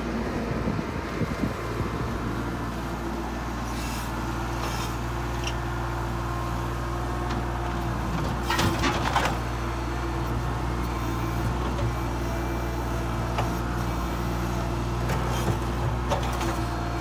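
Compact tractor's engine running steadily as it drives and works its front loader, with a short clatter of knocks about halfway through.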